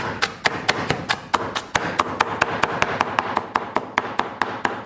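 Kitchen knife chopping rapidly on a cutting board, an even run of about seven strokes a second, mincing scallion, ginger and garlic.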